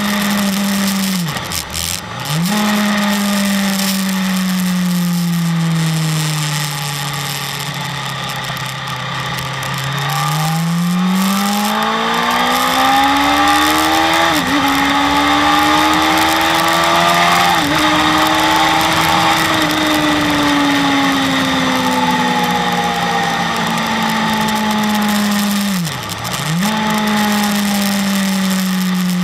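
BMW S1000RR sportbike's inline-four engine heard onboard at speed with wind rush. The revs climb hard through two quick upshifts, then fall away as the bike slows. The engine note drops sharply and briefly near the start and near the end.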